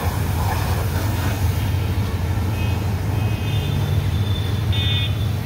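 Pressure washer running with a steady low hum, its water jet spraying onto a car's bodywork.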